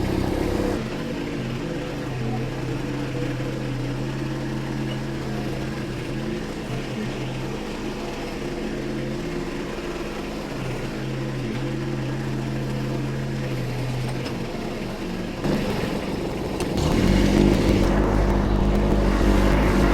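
Kubota B2601 compact tractor's three-cylinder diesel engine running steadily. About seventeen seconds in it grows louder and heavier, as if revved up under load.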